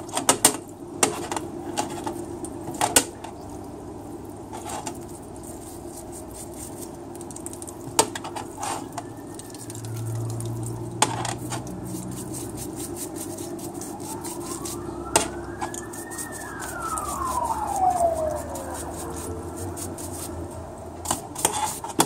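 Parts-washer pump running and solvent splashing over automatic-transmission shift solenoids in a steel tray, with sharp clinks as the solenoids are knocked and set down on the metal, most of them in the first few seconds. A siren-like wail rises and falls twice in the middle, the second one longer.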